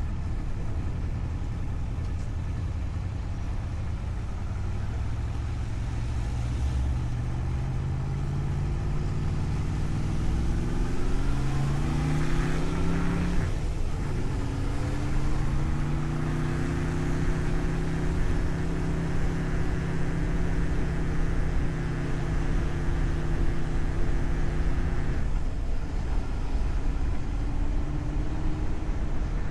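Road vehicle's engine under way: it rises in revs, breaks off briefly about halfway through as at a gear change, climbs again and holds steady, then eases off a few seconds before the end, over a constant low rumble.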